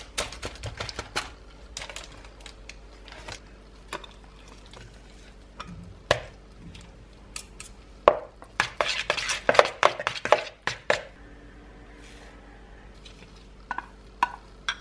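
A metal spoon scraping and pressing crushed Oreo crumbs against a paper-lined bowl, with light taps, then a wire whisk clattering quickly against a bowl as it beats soft cream cheese, the loudest part, about halfway through. Near the end, two light clinks of a knife against a glass dish.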